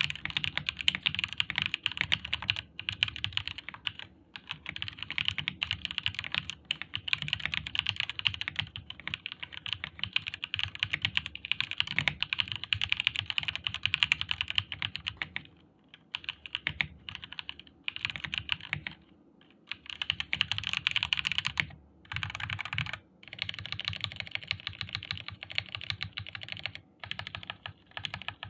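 Stock Jedel WKL66 65% mechanical keyboard with Drinkey Red linear switches being typed on fast and continuously, the dense clatter of keystrokes broken by a few brief pauses.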